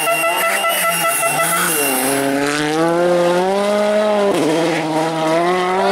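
Volkswagen Polo R WRC rally car's turbocharged four-cylinder engine revving hard as the car passes close by, its pitch rising and falling, with a sharp drop about four seconds in. A steady horn tone sounds over the first two seconds.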